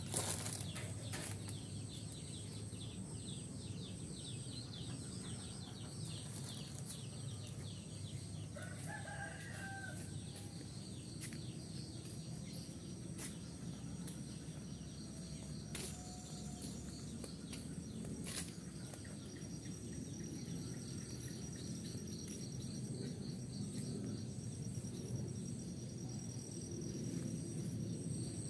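Rural yard ambience: a steady high-pitched insect drone, with a rooster crowing briefly about nine seconds in. Under it runs a low rumble with a few knocks from the hand-held camera being carried.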